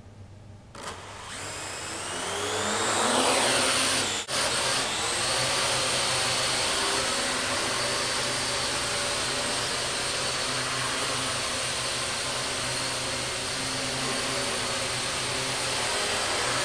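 Parrot AR.Drone 2.0 quadcopter's four electric rotors spinning up for takeoff, a whine rising in pitch over a few seconds. After a brief break about four seconds in, they settle into a steady buzzing hover.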